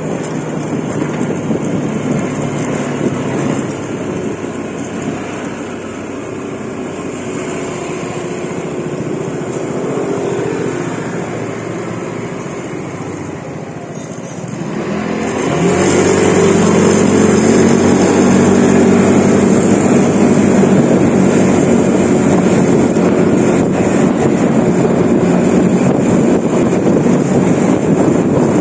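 A motor vehicle's engine running while on the move. About halfway through it speeds up: its pitch rises and it gets louder, then it holds steady.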